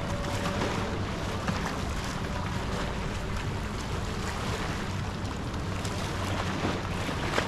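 Seaside beach ambience: waves on the shore and wind on the microphone, with a steady low hum underneath.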